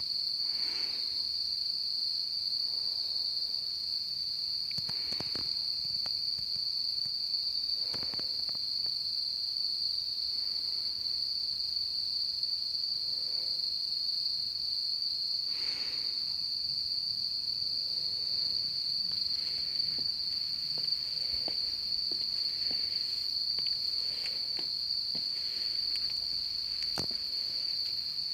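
Insects calling in a loud, continuous chorus, one steady high-pitched trill that never lets up. A few faint knocks are scattered through it.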